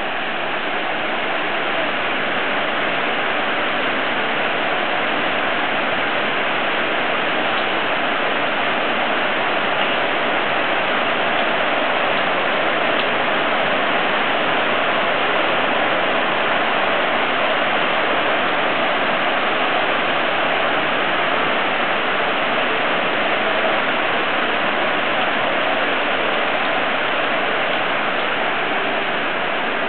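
Heavy rain falling steadily, a dense, even hiss of drops splashing on a wet tiled balcony.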